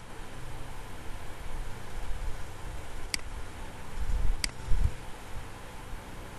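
Two short, sharp clicks about a second and a half apart, typical of a computer mouse button, over steady background hiss and low rumbling thumps.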